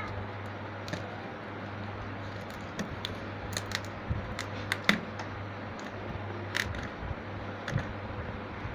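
Packaging of a mixer grinder being handled during unboxing: scattered clicks, taps and rustles of the box and its packing being opened, thickest around the middle, over a steady low hum.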